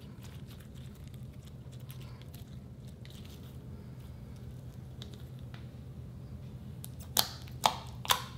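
Pink-tinted clear slime being stretched and folded by hand with faint sticky crackles, then three sharp pops in the last second and a half as fingers press into it, trapped air pockets bursting.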